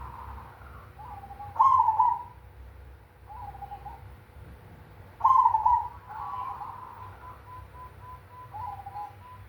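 Zebra dove (perkutut) of the black cemani variety cooing its song: phrases of rolling coos, two loud ones with softer coos between.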